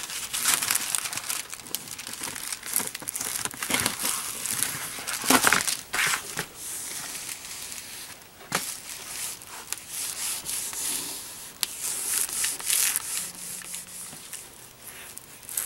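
Thin 1.7 mil clear laminating film crinkling and crackling as it is pulled tight and pressed down onto a foam wing with a hobby sealing iron, in short irregular bursts.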